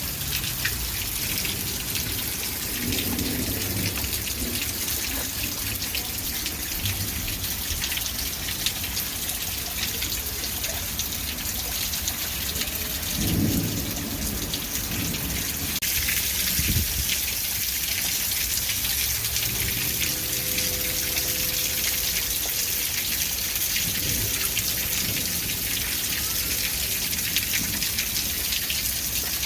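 Steady rain falling, an even hiss of drops, with a few brief low rumbles, the clearest about halfway through.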